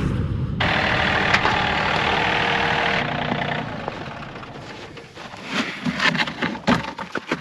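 A motor vehicle engine running steadily, fading away over a few seconds, followed by a quick series of knocks and clatters.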